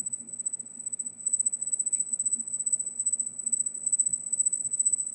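Steady high-pitched electronic whine over a faint low hum: an audio fault in the recording or streaming setup rather than the air conditioner.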